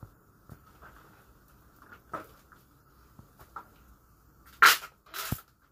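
Hands tending a small campfire in a rock crevice: scattered light clicks and taps, then two loud rustling bursts near the end, the second ending in a thump.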